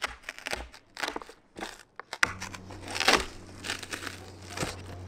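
Plywood being pried and peeled off the rigid foam board it is glued to: the strong adhesive bond crackles and tears in irregular snaps, thickest about three seconds in. A steady low hum comes in about two seconds in.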